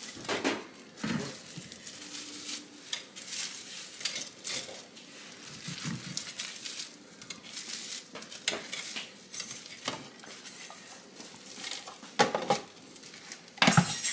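Pieces of toast being dropped into a plastic food processor bowl: light scattered knocks and rustling, with louder knocks near the end as the lid is fitted on.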